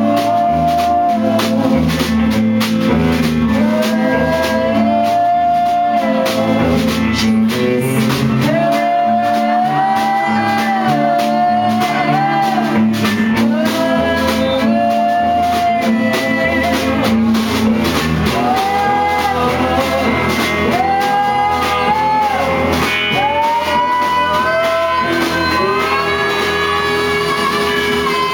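A live band playing a song: long, held sung vocal notes over guitar and drums.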